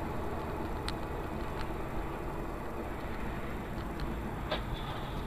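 Steady road and engine noise from a moving car, heard from inside its cabin on a snowy road, with a few faint clicks.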